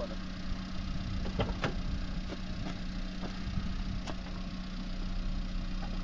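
A vehicle engine running steadily with a low hum, with a few light clicks or knocks scattered through.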